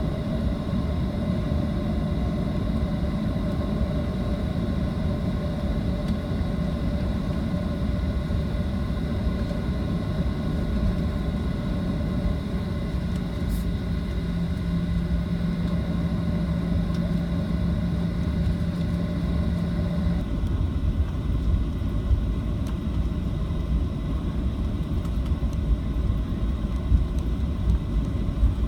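Steady rumble of a Boeing 737-700's CFM56-7B jet engines heard from inside the passenger cabin. About two-thirds of the way through, the higher hiss drops away and the low rumble carries on.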